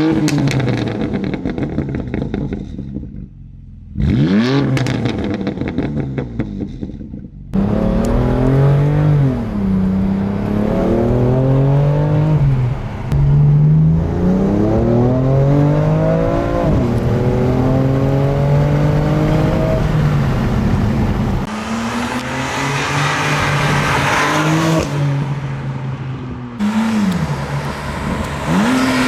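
BMW F80 M3's S55 twin-turbo straight-six being driven hard: two sharp rev blips, then the engine note climbs and drops back several times as it pulls up through the gears, with more throttle blips near the end.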